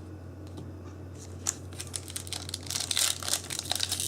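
Foil wrapper of a Yu-Gi-Oh! booster pack crinkling and tearing as it is handled and opened. It starts with a few scattered crackles about a second and a half in and becomes a dense crinkling near the end.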